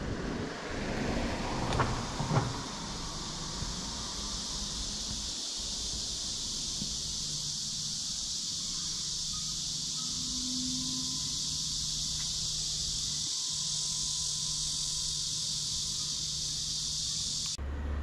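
Steady high-pitched buzzing of a summer cicada chorus, with a low steady hum underneath and two sharp knocks about two seconds in; the buzzing cuts off suddenly near the end.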